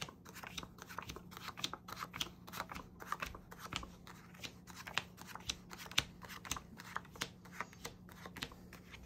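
Playing cards dealt one at a time off the deck onto a reading mat: a quick, irregular run of soft taps and slides, two or three a second, as each card is laid down.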